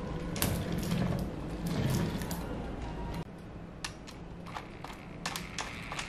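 Scattered sharp plastic clicks and ratcheting from a DX Daivoyager combining toy's parts being handled, over quiet background music that drops in level about three seconds in.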